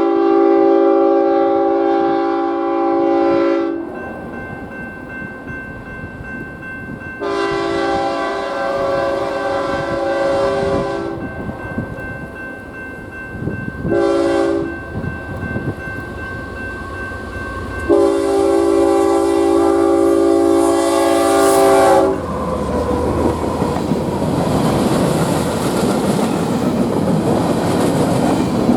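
Diesel locomotive's multi-chime air horn blowing the grade-crossing signal: two long blasts, a short one, then a final long blast. Right after the last blast, the train passes close by with loud wheel and railcar noise.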